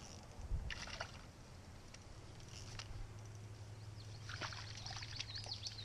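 Water splashing: a short splash about half a second in, then a longer run of splashing near the end.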